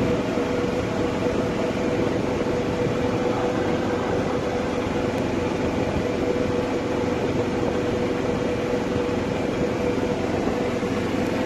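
Golf cart driving at a steady speed: a steady, unchanging hum over a constant rush of noise from the ride.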